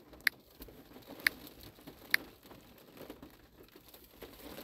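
Three short, sharp key-tap clicks, about a second apart, from typing on a touchscreen keyboard, over a faint low background.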